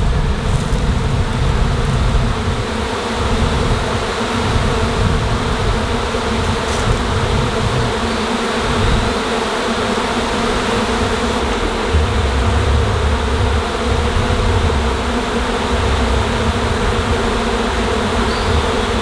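A honeybee swarm buzzing: thousands of bees in the air around the hive box and tree, making a dense, steady hum.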